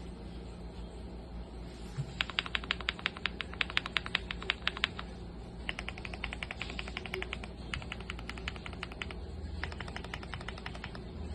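Typing on a Cub65 mechanical keyboard with Akko Yellow Cream Pro linear switches: rapid key clacks in four quick runs separated by short pauses, starting about two seconds in.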